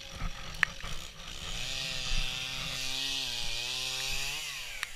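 Chainsaw cutting wood, running steadily for about three seconds with a hissing sawing noise over the engine note. The engine pitch rises briefly just before it stops, as the chain comes free of the cut.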